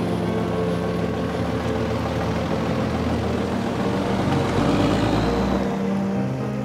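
A coach driving past close by, its engine and tyres growing louder to a deep rumble about three-quarters of the way through, then fading as it moves away.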